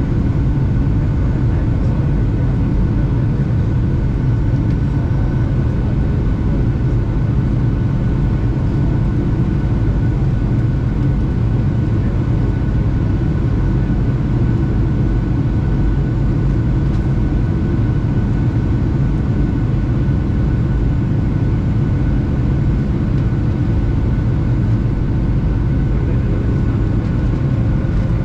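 Boeing 757 cabin noise in flight shortly after takeoff, heard from a window seat by the engine: a steady, deep engine-and-airflow drone with a few faint steady whining tones above it.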